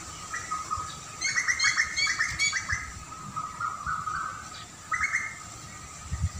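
Small songbirds chirping: a fast run of bright chirps about one to three seconds in and a shorter phrase near five seconds, over a steady high-pitched background tone.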